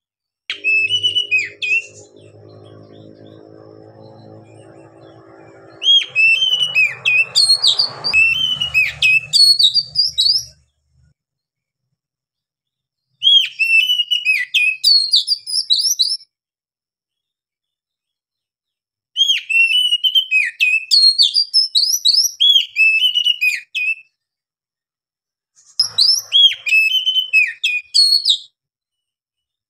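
Male Oriental magpie-robin singing loudly in five bursts of quick, varied whistles that rise and fall, with short silent pauses between the phrases.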